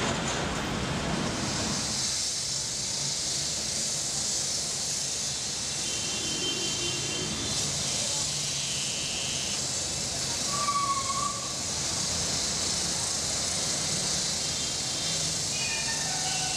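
Steady outdoor city street ambience: an even high hiss under a low traffic rumble, the rumble heavier in the first couple of seconds. Faint short tones come and go, with a brief higher tone about eleven seconds in, the loudest moment.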